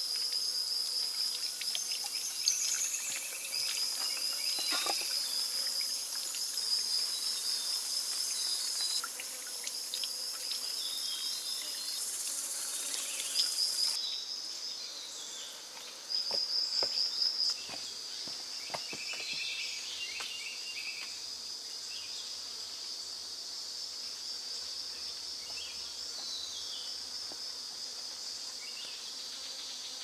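Rainforest insects chirring in fast pulsed trills over a steady high-pitched insect hiss. The high hiss drops away suddenly about halfway through, and a few soft knocks and rustles come in the middle.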